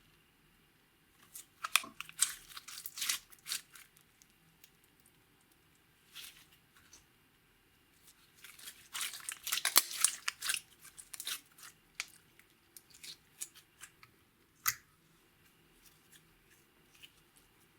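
Crisp crackling and clicking from slime and makeup being worked by hand, in two bursts of a few seconds each, with a single sharp click near the end.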